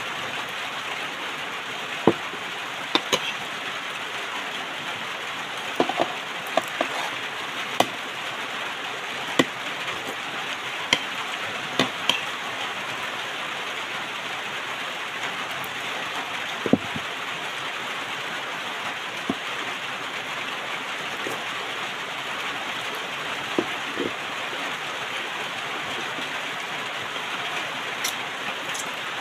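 Scattered light clinks and taps of a spoon and bowls at a meal over a steady, even hiss.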